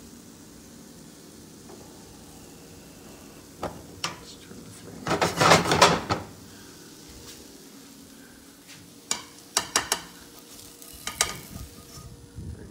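Fritter sizzling quietly in coconut oil in a non-stick frying pan. A burst of scraping and clattering against the pan comes about five seconds in, and sharp clicks and knocks of cookware follow near the start and again later on.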